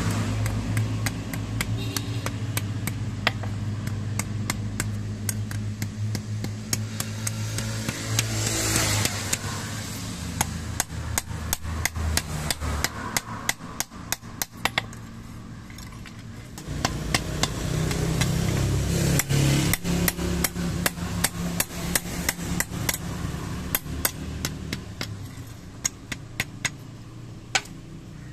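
Rapid hand-hammer blows on a steel sickle blade lying on a small anvil block, several sharp metallic strikes a second as the blade is shaped. A low steady hum runs underneath, fading out about halfway and returning for a few seconds later on.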